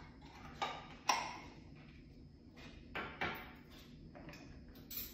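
Kitchen utensils and containers clinking and tapping: about five short knocks, the sharpest about a second in.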